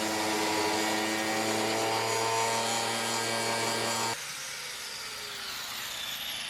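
Angle grinder with a cut-off wheel running at a steady pitch for about four seconds, then switched off, its whine falling as the wheel spins down.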